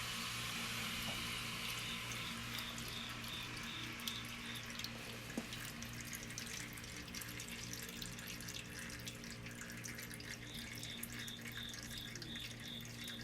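Water leaking from a water heater, a steady hiss with scattered drips, over a low steady hum. Twice, a faint run of high pips repeats about three times a second.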